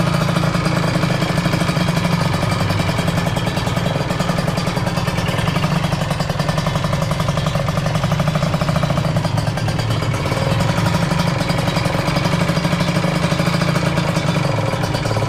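Kawasaki Ninja R two-stroke single-cylinder engine running steadily at a fast idle. Its piston is worn and crusted with carbon and the cylinder is scored, which is the cause of the rough 'ger-ger' noise the mechanics diagnose.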